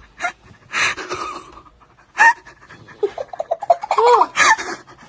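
A dog panting in breathy bursts, then a person breaking into rapid high-pitched giggling laughter from about two seconds in.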